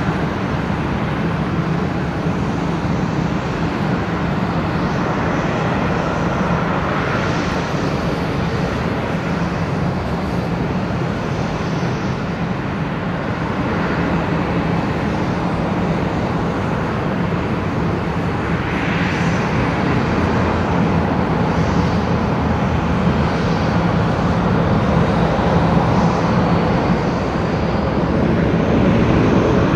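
Antonov An-70's Progress D-27 propfan engines, with contra-rotating eight- and six-blade propellers, running as the aircraft taxis. A steady low drone with a broad rushing noise over it, growing a little louder toward the end.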